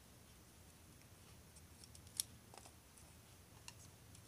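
Faint handling noise of copper wire and a wooden winding stick being threaded through a toroid core: light scattered ticks, with one sharper click about two seconds in.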